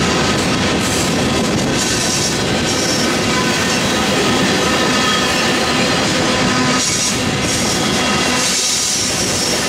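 Covered hopper cars of a freight train rolling past with a steady rumble and wheel clatter over the rail joints. A thin squeal from the wheel flanges runs over it as the cars take the curve.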